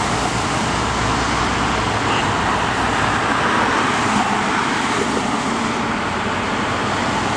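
Road traffic on a multi-lane street: cars passing close by, a steady rush of tyre and engine noise, with a deeper rumble that fades about two seconds in as a car goes by.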